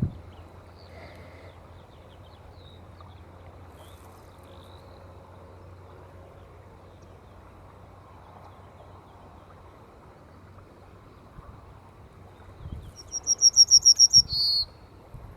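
Songbird singing: a few faint high chirps, then near the end a loud, rapid string of about eight high notes in just over a second, ending on a lower note. A faint steady low hum lies underneath throughout.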